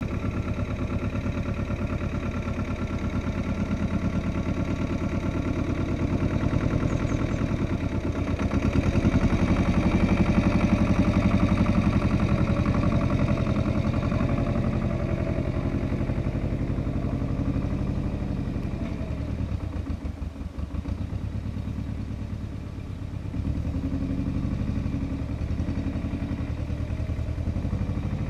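Goldoni 933 RS/DT compact tractor's Lombardini 914 diesel engine running steadily. It grows louder about a third of the way in and eases off for a few seconds past the middle before settling again.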